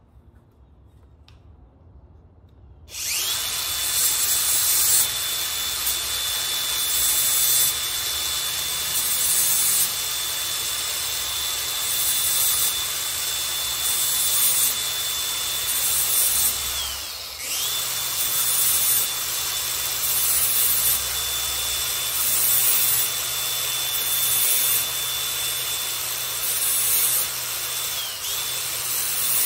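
DeWalt cordless angle grinder starting up about three seconds in and running with a steady high whine, its disc grinding the teeth of a hedge trimmer blade to sharpen them in repeated passes about two seconds apart. The motor's pitch dips briefly twice, once near the middle and once near the end.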